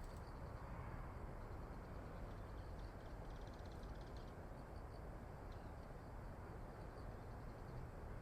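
Faint outdoor ambience: a steady low rumble, with faint high ticks repeating throughout and a short, rapid high rattle about three seconds in.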